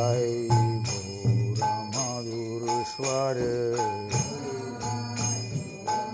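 Intro music: a sustained, wavering melodic line over jingling metal percussion struck about twice a second.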